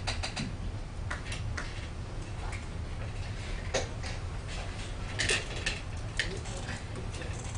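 Scattered light clicks and taps at an irregular pace over a steady low hum of room noise, with a short cluster of louder clicks about five seconds in.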